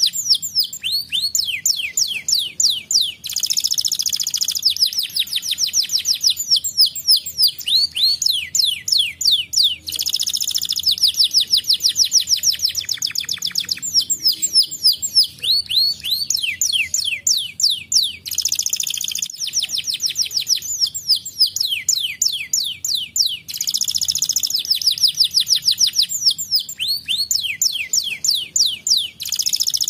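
Domestic canary singing a long, continuous song: rapid series of short falling notes, many a second, alternating with dense rolling trills.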